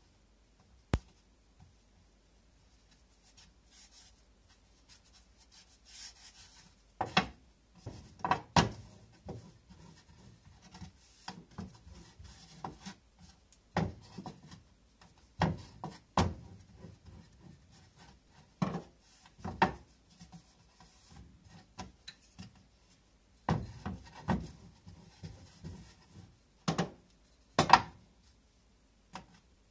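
Bread dough being rolled out with a wooden rolling pin on a wooden board: soft rolling and rubbing, broken by many scattered sharp wooden knocks.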